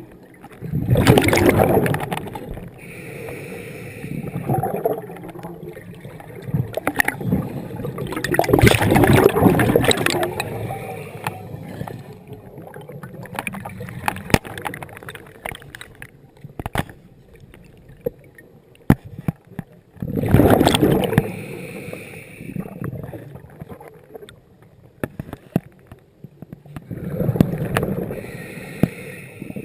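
A scuba diver breathing through a regulator underwater: four gurgling bursts of exhaled bubbles, each lasting two to three seconds and several seconds apart, with softer breathing noise and scattered small clicks between them.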